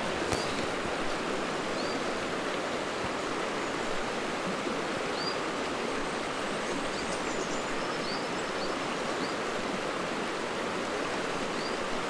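Steady rush of a river running, with about ten brief, faint high-pitched calls of small birds scattered through it.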